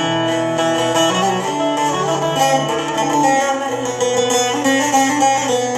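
Bağlama with a built-in equaliser playing a quick plucked melody, its transpose function set so the tonic sounds as B.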